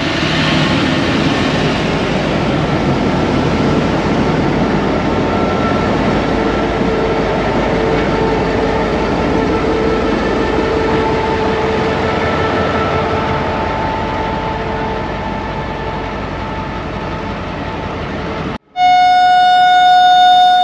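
A GMU-15 diesel-electric locomotive runs close by during shunting, with a steady engine and rail rumble. Near the end it gives its distinctive horn: one steady, high blast of about two seconds.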